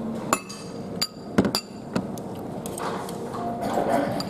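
Chopsticks clinking against a ceramic bowl while picking out the last noodles: about five sharp, ringing clinks in the first two seconds, over a steady background hum.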